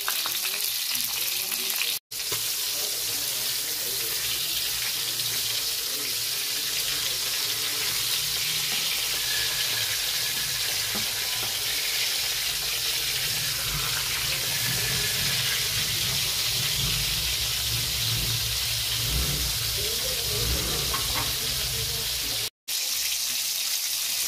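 Daing (split, sun-dried salted fish) frying in hot oil in a wok, a steady sizzle. It cuts out for an instant about two seconds in and again near the end.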